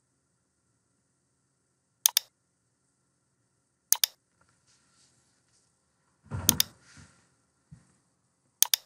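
Computer mouse clicks, four times about two seconds apart, each heard as two quick ticks. The third comes with a dull thump.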